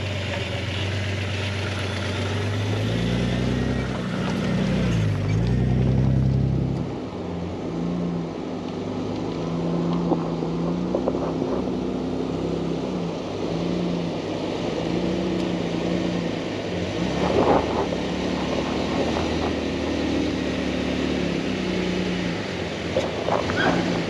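Jeep Grand Cherokee WJ's engine pulling at low speed along a rough trail, its pitch dipping and rising as the throttle changes. A couple of sharp knocks come about three-quarters of the way through and again near the end.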